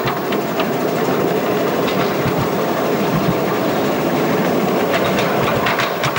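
Ride-on miniature railway train running along its narrow-gauge track: a steady rumble of wheels on rail with a few scattered clicks.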